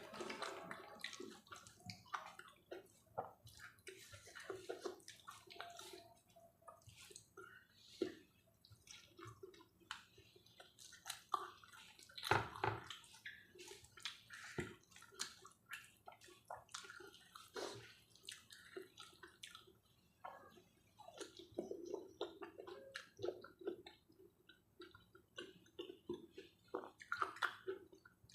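Faint, irregular eating sounds: wet chewing and mouth noises of someone eating rice and steamed vegetables with sambal, with scattered small clicks and taps. One louder knock comes about twelve seconds in.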